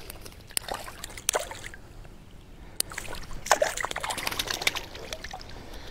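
Hooked trout splashing and thrashing at the water's surface as it is brought to hand, in irregular splashes with a busier flurry about three and a half seconds in.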